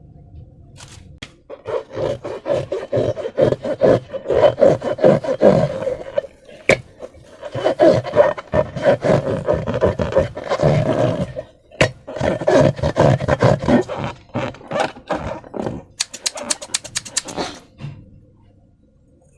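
Rubber balloon being rubbed and squeezed by hand, giving long stretches of squeaky rubbing strokes with short pauses between them. Near the end comes a quick, even run of clicks.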